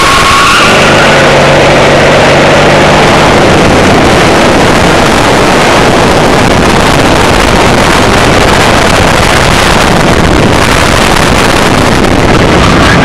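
Racing kart engine running hard at speed, heard from the onboard camera, buried under loud wind noise on the microphone; its note rises briefly in the first few seconds.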